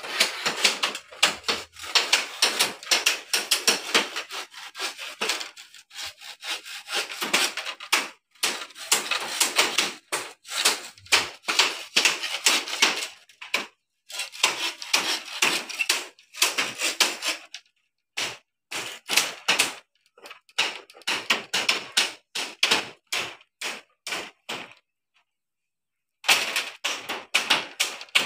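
Saw cutting through bamboo in quick rasping strokes, in long runs broken by a few brief stops.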